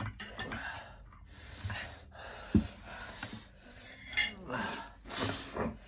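Heavy breathing and gasps from people eating very spicy kimchi noodles, with light clinks of dishes and cutlery and a single knock on the table about halfway through.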